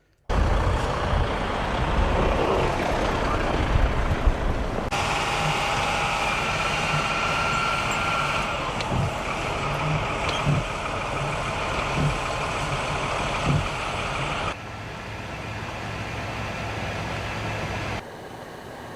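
Heavy truck and road traffic noise, a steady rumbling hiss from engines and tyres, changing abruptly several times as the footage cuts between shots.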